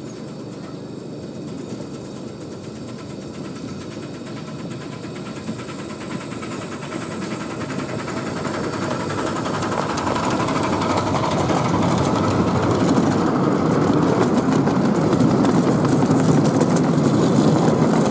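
Miniature steam locomotive hauling a train of passenger carriages, approaching and passing. The noise of the engine and wheels on the rails grows steadily louder over the first twelve seconds or so, then holds as the carriages roll past.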